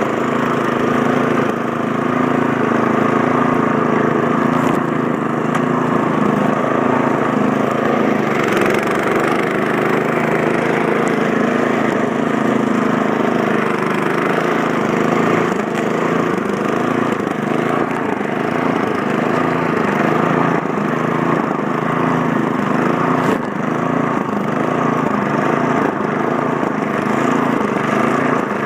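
Snowblower engine running steadily, with one brief dip in level about 23 seconds in.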